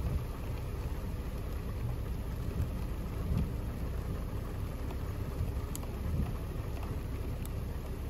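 Heavy rain falling on a car, heard from inside the cabin: a steady low rumble with a few sharp drop ticks.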